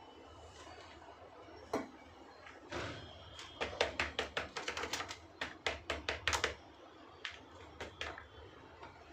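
Hands at work potting plants with pots and soil: a sharp click, a soft thump, then a quick run of light taps and knocks, about five a second, for some three seconds.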